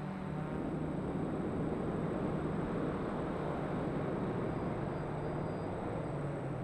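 DJI F550 hexacopter in flight, its six electric motors and propellers giving a steady low buzz over a dense rushing noise, heard from a camera mounted on the aircraft.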